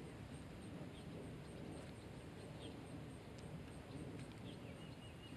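Quiet lakeside background: a faint steady outdoor hush with a soft, regular high-pitched pulsing about three times a second and a few faint ticks.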